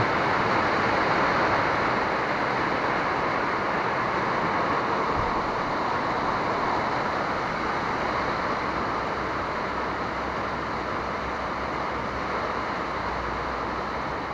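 Heavy rain pouring down in a steady hiss, easing slightly toward the end.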